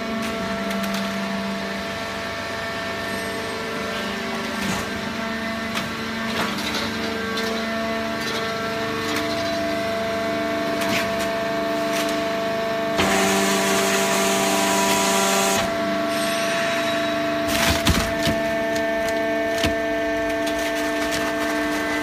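Fully automatic horizontal hydraulic baler running, with a steady multi-tone whine and hum from its machinery. A louder rushing noise rises from about 13 to 15.5 seconds in, and a few knocks come around 18 seconds.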